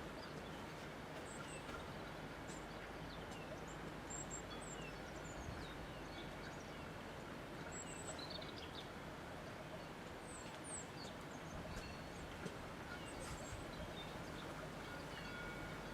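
Steady rushing wind with small birds chirping here and there, short high tweets scattered through it.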